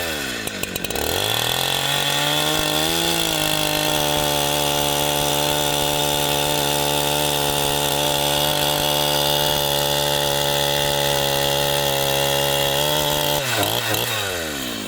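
Husqvarna 372 two-stroke chainsaw revving up and held at steady high revs for about eleven seconds, then dropping back and picking up again near the end. Its chain is dull from digging into the dirt and needs sharpening.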